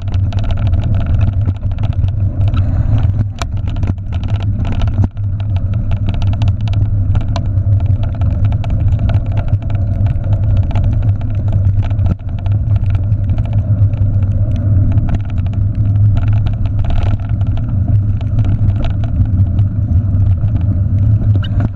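Steady low rumble of wind and trail noise on a handlebar-mounted camera as a bicycle is towed fast along a dirt trail, with frequent clicks and rattles from the bike jolting over the rough ground.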